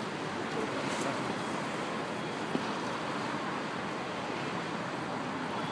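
Steady rumble of city traffic, with a faint knock about two and a half seconds in.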